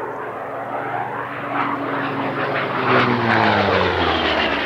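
Propeller airplane flying past, growing louder, then its engine note dropping in pitch as it goes by about three seconds in.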